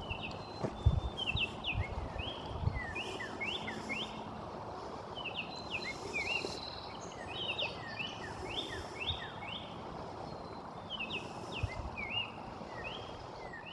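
Small birds chirping and singing in repeated quick, sweeping notes over a steady outdoor hiss, with a few low thumps in the first few seconds.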